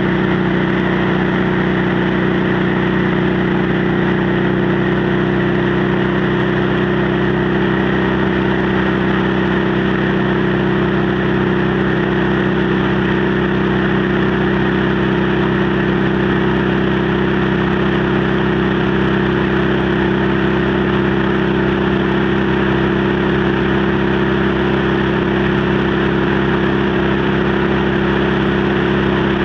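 Motorcycle engine and exhaust running at a steady cruise, with wind rushing over the microphone. The engine note holds even throughout, with no shifting or revving.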